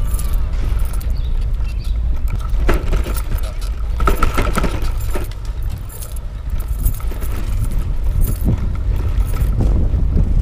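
Wind buffeting the microphone of a bicycle-mounted action camera while riding, a steady low rumble, with tyre noise and frequent clicks and rattles from the bike over the pavement.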